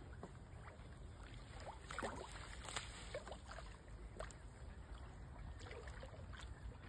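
Faint small splashes and water lapping as a hooked carp rolls at the surface beside a boat, over a low steady rumble.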